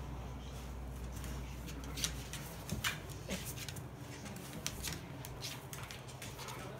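Dogs' claws clicking and scuffling on a wooden floor as bulldogs shift about: a scatter of short sharp clicks, the loudest a few seconds in.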